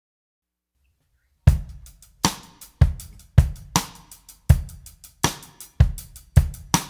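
Background music: silence, then a solo drum-kit beat comes in about a second and a half in, with bass drum, snare and cymbal strikes in a steady rhythm.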